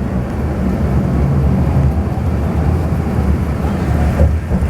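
Steady low rumble of a moving tour bus heard from inside the cabin: engine and road noise.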